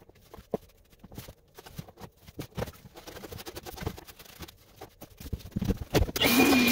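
Hand scraper scraping a wooden pad: a run of irregular scrapes and knocks. About six seconds in, a motor-driven tool starts and runs loudly and steadily.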